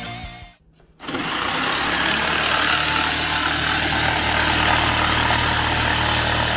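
Background music fades out, and after a short gap an electric power saw starts about a second in. It runs steadily, cutting along the edge of a wooden board, with a low motor hum under the noise of the cut.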